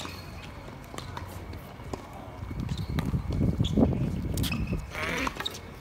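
Footsteps and scattered sharp taps on a hard tennis court, with a low rumble that swells in the middle and fades before the end.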